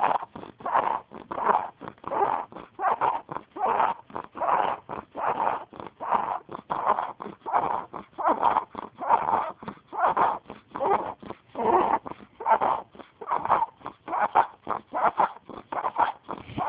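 Steady snoring in quick, even breaths, close to two snores a second.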